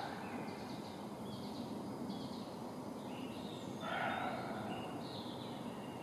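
Small birds chirping faintly, with one short, harsh call from an unidentified animal about four seconds in. It is a call he has never heard before and thinks could be a spring rutting or mating call.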